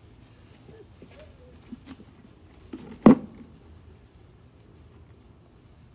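A single sharp knock about halfway through, over a quiet background with faint short high chirps now and then.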